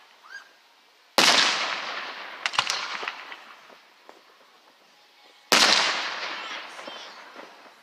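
Aerial fireworks shells bursting overhead: two loud booms about four seconds apart, each trailing off in a long fading echo over about two seconds, with a few sharp crackles after the first.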